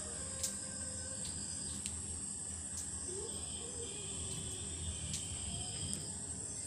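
Basmati rice boiling in a pot of water: a faint bubbling with a few small pops, under a steady high-pitched whine.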